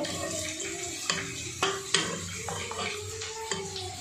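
Steel ladle stirring cooked chana dal and ridge gourd in an aluminium pressure cooker, a wet stirring sound with a few sharp knocks of the ladle against the pot.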